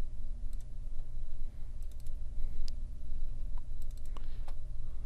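Computer mouse clicking in several short quick clusters, as folders are double-clicked open, over a steady low electrical hum.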